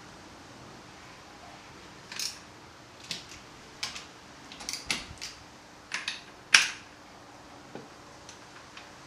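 A run of about ten short, sharp metal clicks and clinks over some five seconds, the loudest a little after six seconds in: tools and fork parts being handled during a motorcycle fork oil change.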